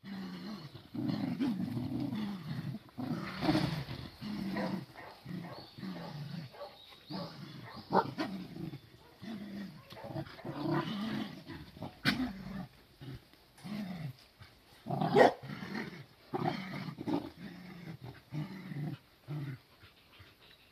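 A group of Cardigan Welsh Corgis growling and grunting, many short low growls one after another, with a few sharper barks; the loudest comes about three-quarters of the way through.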